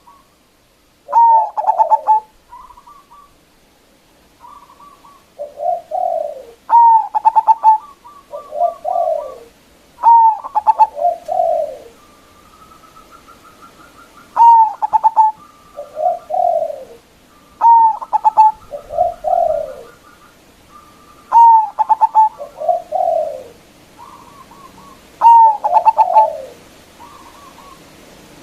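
Zebra dove (perkutut) singing its cooing song: a loud phrase comes about every three and a half seconds, each a clear note followed by lower rolling coos, with softer short notes between the phrases.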